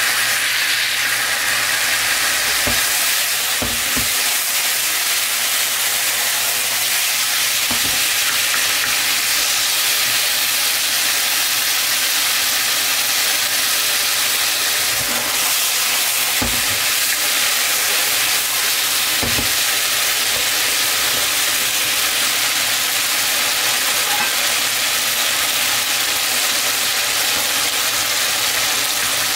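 Marinated chicken pieces sizzling steadily in a hot wok, with a few brief knocks as a wooden spoon stirs them.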